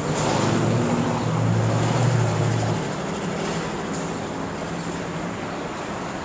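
Steady engine roar with a low hum, louder for the first three seconds and then easing off.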